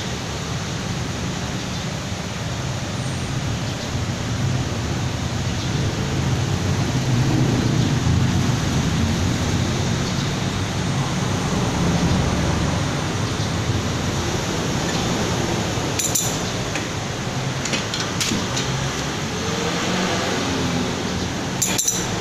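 Steady rushing background noise, with a few light metal clinks from about two-thirds of the way in as a spanner works a nut clamped in a steel bench vise.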